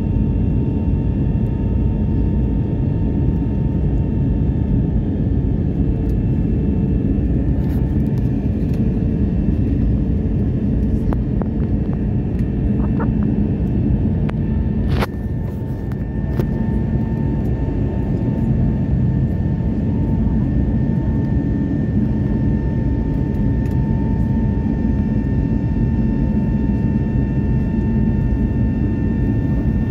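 Airliner cabin noise during the climb after takeoff: a steady, loud rumble of the engines and rushing air, with a steady whine running over it. A single sharp click about halfway through.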